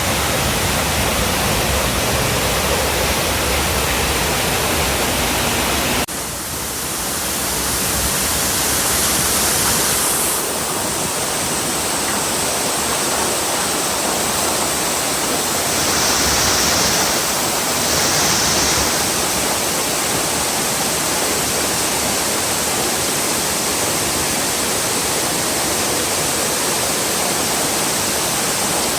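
Waterfall: a steady, loud rush of falling water, its tone changing abruptly about six seconds in.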